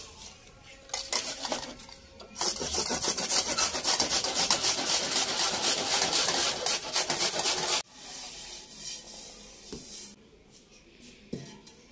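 Carrots being grated by hand on metal graters, one of them an old homemade grater made of a punched iron sheet: fast, dense rasping strokes that grow loud a couple of seconds in and cut off suddenly about eight seconds in.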